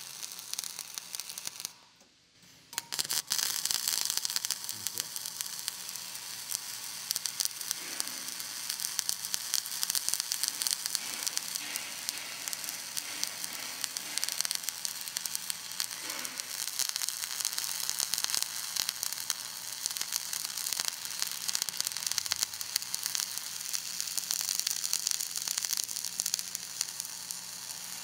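Flux-cored wire-feed arc welding on a steel plate test coupon, run vertically up the joint: a steady crackling sizzle from the arc. The arc breaks off briefly about two seconds in and restarts a second later.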